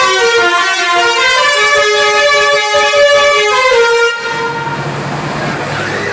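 Basuri multi-tone bus horn playing a stepped telolet melody of several notes, which cuts off suddenly about four seconds in, leaving a low steady hum.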